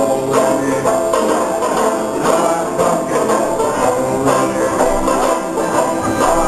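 Live banjo band playing a song together: several 5-string and tenor banjos strumming and picking in a steady rhythm.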